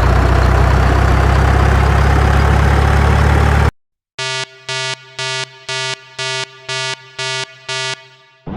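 Car sound effects: a loud, steady low engine rumble for about three and a half seconds that cuts off suddenly, then, after a short gap, eight short evenly spaced horn beeps, about two a second.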